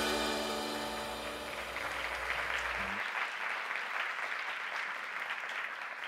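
Audience applauding in a hall, building up as a film's closing music dies away; the music's held chords and bass cut off about three seconds in.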